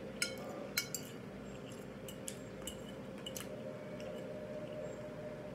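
Scattered light clicks and taps of a metal fork against a ceramic plate while eating, with soft wet mouth sounds of chewing, over a faint steady hum.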